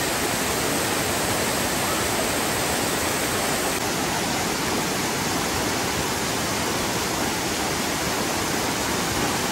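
Steady rush of water pouring over the terraced travertine steps of Dunn's River Falls.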